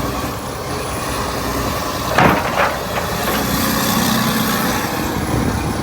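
John Deere 790 excavator's diesel engine running steadily while the machine works, with two short sharp knocks about two seconds in.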